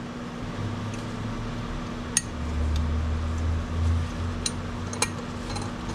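Small metal turbocharger parts, the variable-vane ring and its vanes, clicking and clinking as they are handled and fitted together. A few sharp clicks over a low rumble.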